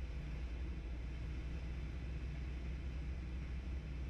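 Scottish Aviation Bulldog's four-cylinder Lycoming IO-360 engine and propeller droning steadily in the cockpit on final approach with full flap: a low, even hum under a constant hiss, with no change in pitch.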